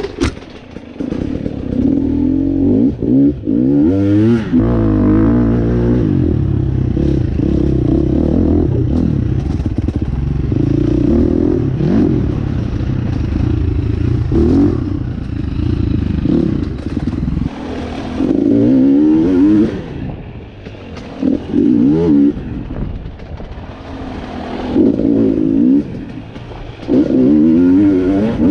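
KTM enduro motorcycle engine revving, its pitch rising and falling again and again as the throttle opens and closes along a tight dirt trail, with knocks and clatter from the bike over rough ground.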